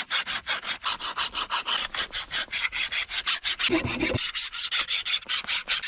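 Hand file rasping back and forth over a leaf-spring steel knife blade in quick, even strokes, about five a second.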